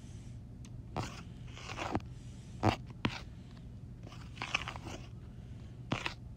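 A stylus tapping and dragging on a tablet's glass screen while drawing: irregular short scratchy strokes and clicks, the loudest about two and a half seconds in, over a low steady hum.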